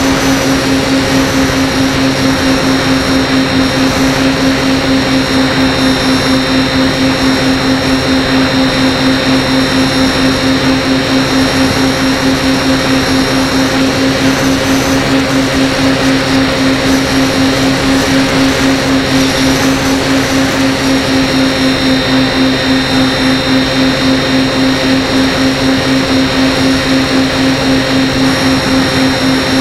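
Aircraft engine and propeller running at a constant speed in flight: a steady low drone with a thin high whine above it.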